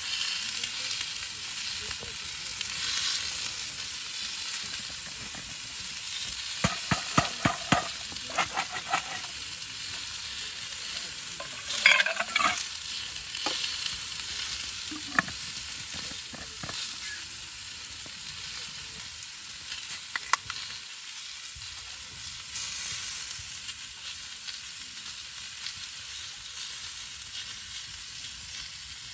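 Food sizzling steadily in a pan over a camp stove, with a run of sharp clicks and a louder clatter of a utensil against the pan about twelve seconds in.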